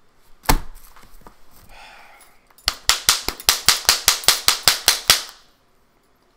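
One sharp crack, then a fast run of about a dozen sharp cracks at roughly five a second, the last one trailing off briefly.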